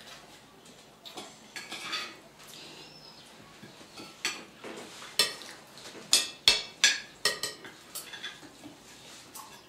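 Cutlery clinking and scraping against plates and dishes at a meal, a run of short sharp clinks that come thickest and loudest from about four to eight seconds in.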